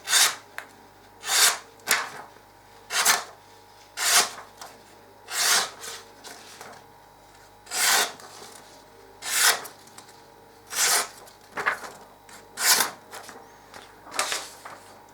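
Multitool's stainless-steel knife blade cutting through material in about a dozen short strokes, roughly one a second, as its sharpness is tested; the blade cuts cleanly, a sign it is sharp.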